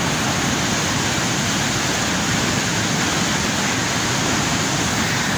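Floodwater rushing through a river barrage: a steady, loud rush of turbulent water.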